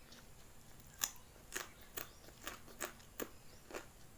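Close-up chewing of crunchy food, a crisp crunch with each bite, about two a second.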